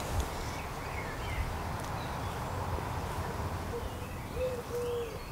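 Outdoor garden ambience: small birds chirping, and in the second half a few short, low hoot-like bird calls, over a steady low rumble.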